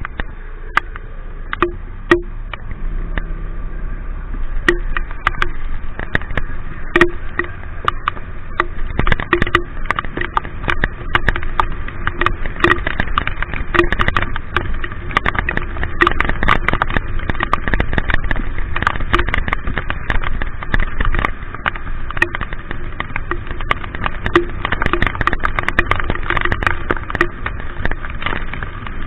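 Raindrops ticking and tapping on the camera over steady road and traffic noise while riding through the rain.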